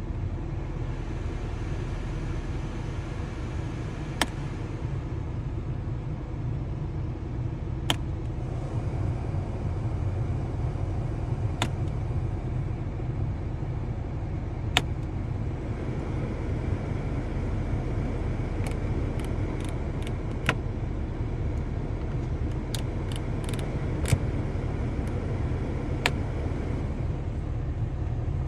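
Nissan 240SX's engine idling, heard from inside the cabin as a steady low rumble under the rush of air from the climate-control blower. Sharp clicks come every few seconds as the climate-control mode buttons are pressed, with a quick run of clicks in the second half. The airflow hiss drops away and returns several times as the vent mode changes.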